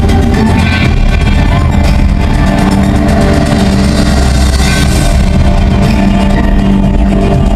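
Loud amplified concert music played over an arena sound system, with a heavy bass and steady held notes.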